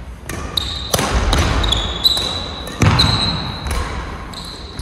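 Badminton rally: several sharp racket strikes on the shuttlecock, with court shoes squeaking repeatedly on the floor between them.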